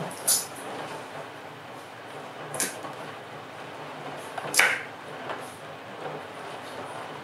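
A chef's knife cutting vegetables on a wooden cutting board, making a few separate sharp knocks, the loudest about four and a half seconds in, over a steady hiss of falling rain.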